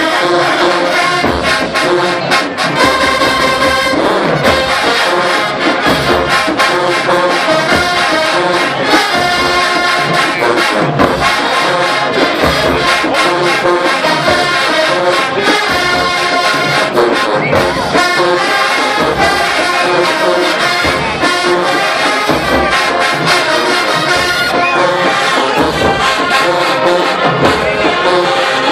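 HBCU marching band playing loudly: a full brass section carrying the tune over a steady beat of drums.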